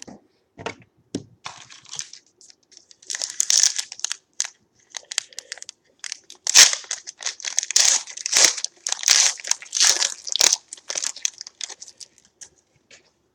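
A trading-card pack's wrapper being torn open and crinkled in the hands, a run of irregular crackling and crunching that is densest in the middle and tails off near the end.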